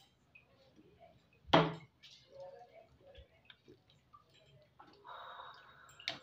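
A single loud metal clank at an aluminium cooking pot about a second and a half in, then faint clicks and scrapes as a spatula stirs rice into boiling stock; a steady hiss comes in near the end.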